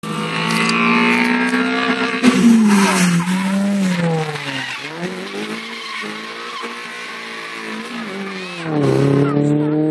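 Small hatchback's engine revving hard on a tarmac competition course, its pitch dropping sharply a few times and climbing again as it accelerates between the turns. Tyres squeal briefly at the start.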